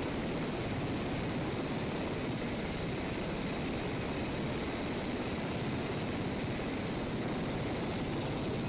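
Navy H-60 Seahawk helicopter running on the ground close by: a steady, loud rush of turbine and rotor noise.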